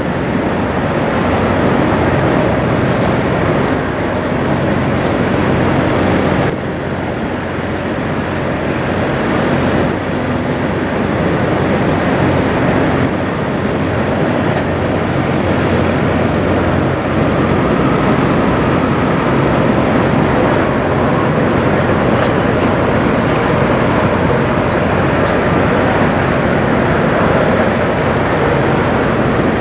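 Heavy diesel truck engine idling: a steady, loud low rumble with a constant engine tone.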